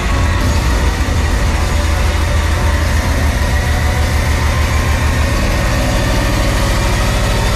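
Loud hardcore electronic music over a club sound system, heard from the crowd: a sustained deep bass drone, which turns into a fast, even bass pulse about two-thirds of the way through.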